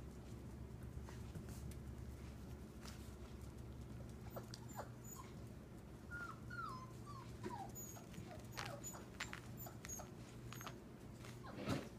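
Puppies whimpering and squeaking faintly: short, thin calls that glide in pitch, mostly bunched in the middle, with a few light clicks and taps.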